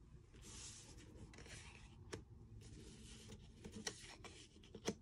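Faint rubbing and sliding of trading cards being moved across a playmat, in soft patches, with a few light taps, the sharpest just before the end.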